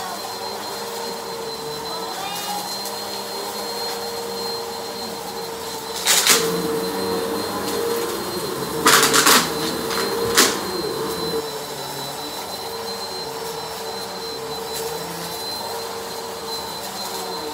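Bissell PowerForce Helix Turbo upright vacuum running steadily with a constant motor whine as it is pushed over a rug. Loud rattling bursts come about six seconds in, around nine seconds in, and once more briefly near ten and a half seconds, as debris from the dumped mess is picked up.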